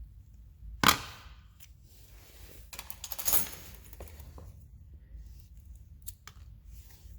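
A sharp knock, then a stretch of rattling and scraping and a few light clicks: small hard objects being handled.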